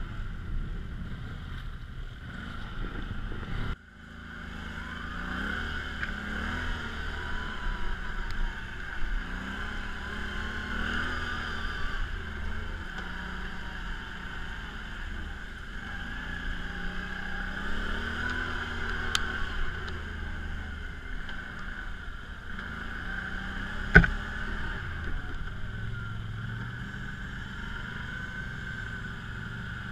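Quad (ATV) engine running off-road, its revs rising and falling as it works along a dirt trail, with wind buffeting the microphone for the first few seconds. A single sharp knock stands out about two-thirds of the way through.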